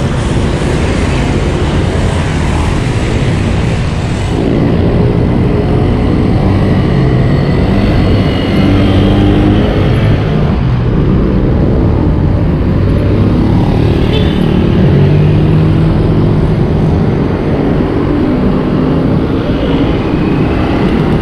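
Heavy wind rush on the microphone of a moving bicycle. Motor vehicle engines run close by on the road, their hum wavering in pitch from about four seconds in.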